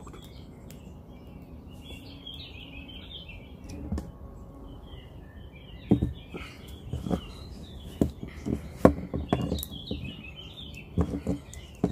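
Small birds chirping and warbling in the background. From about six seconds in, a series of sharp, irregular clicks and knocks stands out above them.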